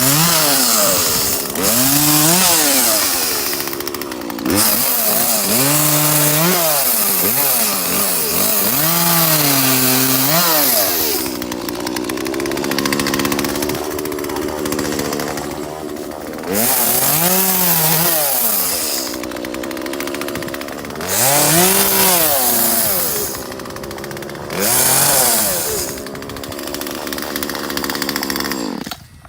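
Petrol chainsaw cutting tree branches, its engine revving up and falling back to idle again and again, and shut off near the end.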